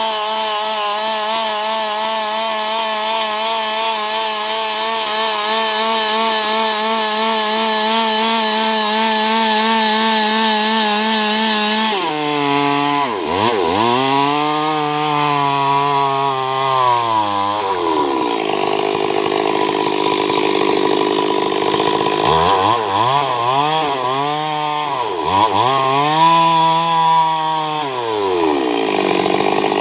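Chainsaw engine running at high, steady speed. About twelve seconds in, its pitch starts falling sharply and climbing back, first in two slow swoops and then in a quicker run of dips near the end.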